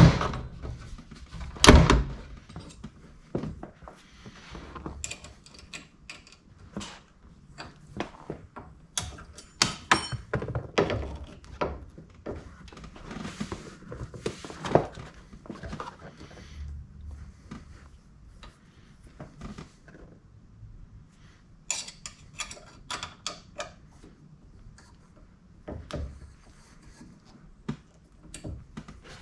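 Irregular clicks, knocks and thumps of a Scosche 5-inch round convex mirror and its mount on a Jeep's roll cage being handled and adjusted by hand, with the loudest thump about two seconds in and further bunches of clicks scattered through.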